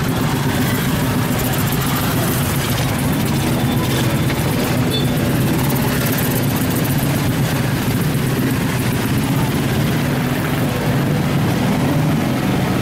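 Heavy vehicle engine running steadily with a low rumble, over continuous street noise.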